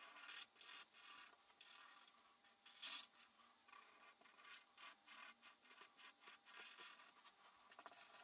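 Black ink pen drawing on paper: faint, quick scratchy strokes, several a second, with one louder stroke about three seconds in.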